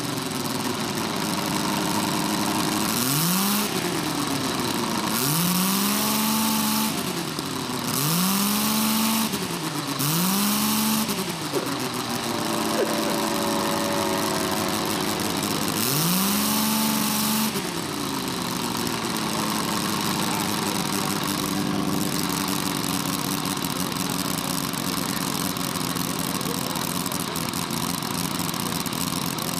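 Quarter-scale model Bentley BR2 rotary aero engine running on the ground, revved up and back down about five times, then settling to a steady lower speed for roughly the last ten seconds.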